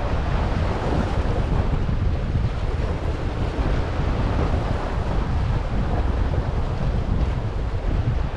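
Wind buffeting the microphone in a steady low rumble, over small sea waves washing and splashing against jetty rocks.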